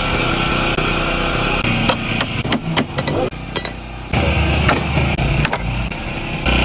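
Vespa scooter engine running, with a cluster of sharp knocks and clicks about two to four seconds in, then a low rumble.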